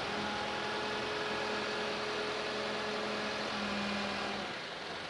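A lift's engine running at a steady hum, which drops away near the end.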